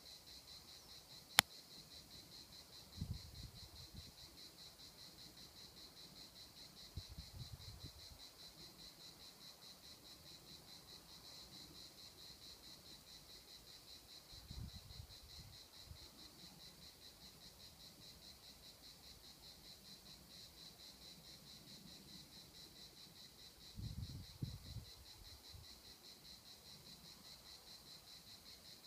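Steady, high-pitched trilling of a summer insect chorus, with one sharp click about a second and a half in and a few brief low rumbles.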